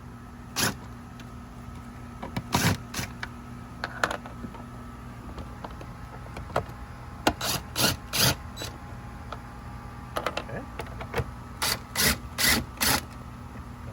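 Cordless screw gun with a 5/16 bit run in short bursts to back out the screws holding the stock air intake, with clicks and knocks of the tool and loose parts; the short sounds come in clusters, over a steady low hum.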